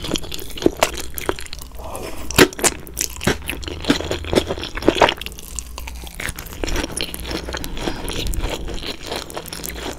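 Close-up eating sounds of chewy spicy Korean noodles: wet slurps and irregular smacking, crunchy chewing clicks right at the microphone.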